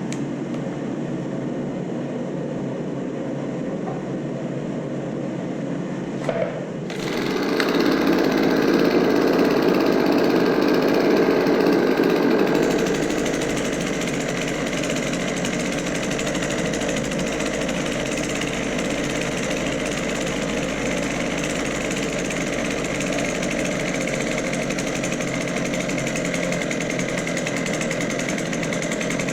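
Echo PB-2100 leaf blower's small two-stroke engine running while its rebuilt carburetor's low and high mixture screws are set. About seven seconds in it gets louder for around five seconds, then settles back to a steady run.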